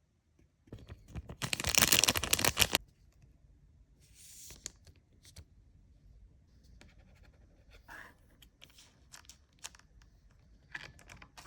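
Pokémon card booster pack wrapper torn open with a loud crinkly rip lasting about two seconds, followed by quieter rustling and small clicks as the wrapper and cards are handled.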